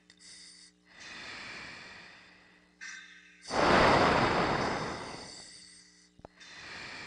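Breathing through an oxygen mask: several airy breaths, the loudest about three and a half seconds in, tailing off over a couple of seconds, over a faint steady electrical hum.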